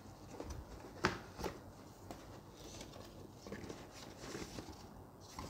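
Faint handling noises: a few light clicks and knocks, the sharpest about a second in, over quiet room tone, as small telescope parts are picked up and handled.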